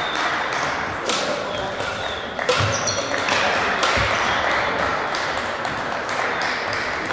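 Crossminton rally on a wooden sports-hall court: sharp racket hits on the speeder and footfalls, echoing in the hall, over a murmur of background voices. There are heavier thuds about two and a half and four seconds in.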